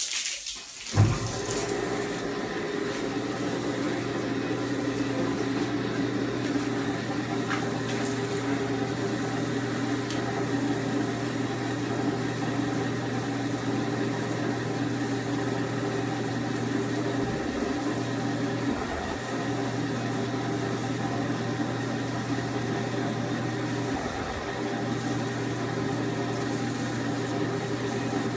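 A copper coating pan's drive motor comes on with a sharp knock about a second in and then hums steadily as the pan turns, while water from a garden hose runs onto the rice chaff inside to soak it wet.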